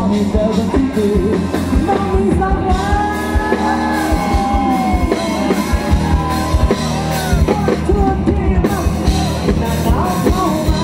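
Live rock band playing through stage speakers: electric guitars, bass and a drum kit, with a singing voice over them.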